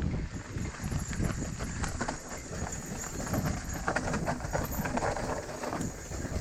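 Mountain bike riding down a rough trail: the bike rattles and knocks in quick, irregular strikes as the tyres go over roots and rocks, over a steady low rumble.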